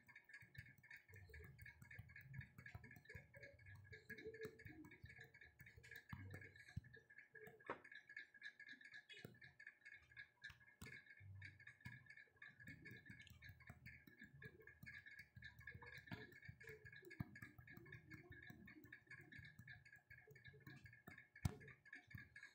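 Near silence: faint room tone with a steady high hum and scattered faint ticks, and one sharper click about a second before the end.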